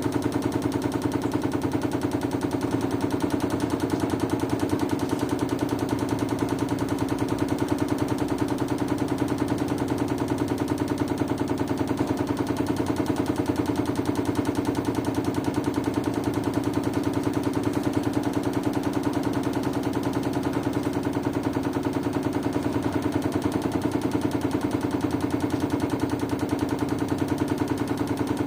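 LG washing machine running: a steady motor hum with a rapid, even rattle.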